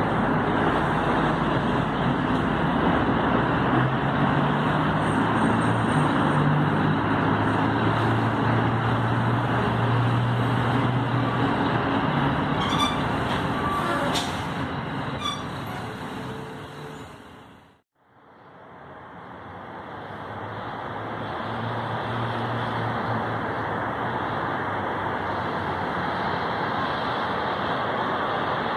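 Steady street traffic noise with a heavy vehicle's engine hum in the first half. The sound fades out to silence about eighteen seconds in, then fades back up to steady traffic.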